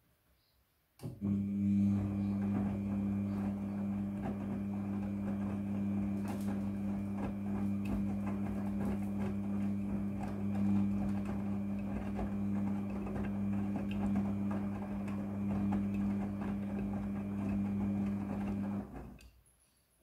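Midea front-loading washing machine's drum turning during the wash cycle. The motor starts about a second in and runs with a steady hum while the laundry tumbles, then winds down and stops near the end.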